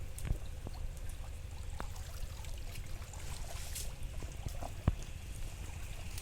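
Pond water splashing and trickling, with a steady low rumble and a few sharp knocks, the loudest about five seconds in.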